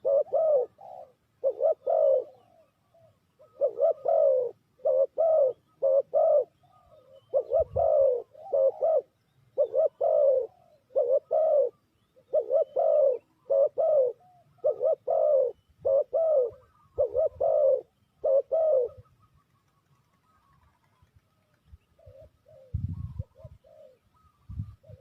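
Spotted dove cooing in a long run of short repeated phrases of a few notes each, stopping about 19 seconds in. A few low thuds follow near the end.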